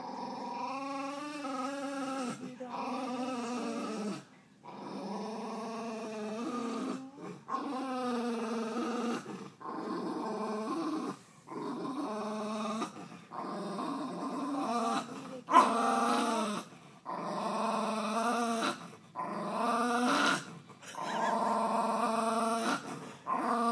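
West Highland white terrier growling in a long series of grumbles, each a second or two long with short breaks between, and one louder outburst about two-thirds of the way through. These are the grumpy warning growls of a dog that does not want to be moved off a lap.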